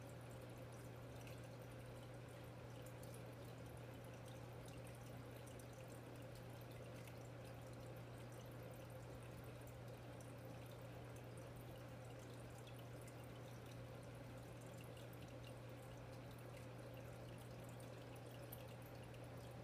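Faint, steady aquarium equipment noise: a low hum from a pump or filter with light water trickling and dripping.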